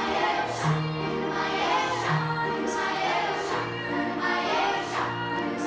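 Children's choir singing a slow song, holding long notes that change about once a second.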